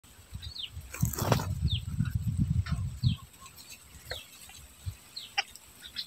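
Common myna calls at a tree-hollow nest: short, high, thin notes that slide downward, repeated every half second to a second. A louder low rumble fills the first three seconds.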